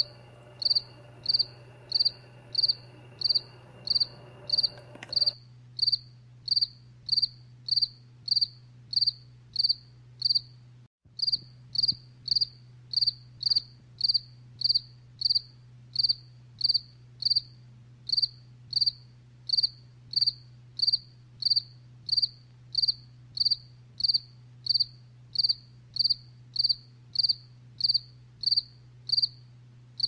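Cricket chirping: short, high, evenly spaced chirps, about two a second, with a brief break about eleven seconds in.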